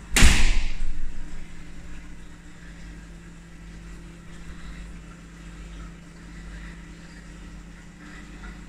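A sudden loud rushing burst just after the start that fades away over about a second, then a steady low hum with a faint rumble.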